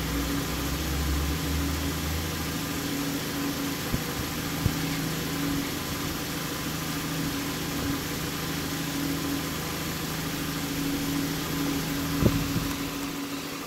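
A steady mechanical hum, like a motor running, with a few faint clicks and knocks.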